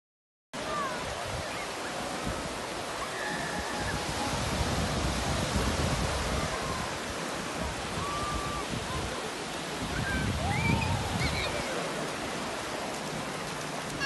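Small waves breaking and washing up a sandy beach, a steady rush of surf, with faint distant calls and shouts of bathers. The sound drops out for a moment at the very start.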